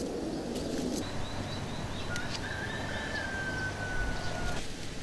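Bird calls: a quick run of short high chirps, then one long whistle that falls slightly in pitch, over steady background noise.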